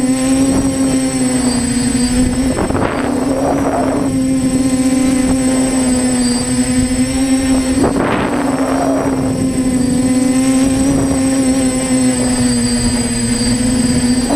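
TBS Discovery Pro quadcopter's four brushless motors and propellers buzzing with a steady tone that wavers slightly in pitch, heard through the camera mounted on board. Several brief rushes of wind noise cut in about three and four seconds in and again near the middle.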